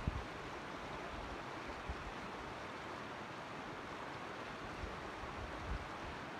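Mountain creek flowing steadily, an even rushing hiss of running water. Two brief low thumps come right at the start.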